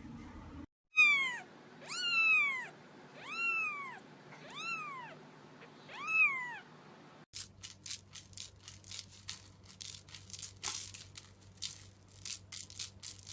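A cat meowing five times, each meow rising and falling in pitch, about one every second and a half. After that come quick irregular clicks and taps over a steady low hum.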